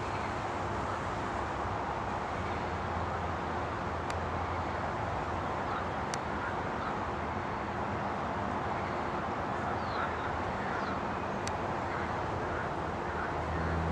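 Steady outdoor ambience dominated by a low, even rumble of distant road traffic, with a few faint high chirps in the second half.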